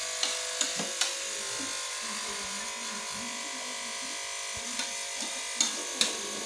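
A steady electrical buzz throughout, with spoons and forks clinking sharply against plates as noodles are eaten: a few clinks near the start and a couple more near the end.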